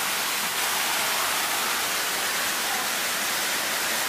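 Steady rushing noise of Inambakan Falls, a tall waterfall, without a break.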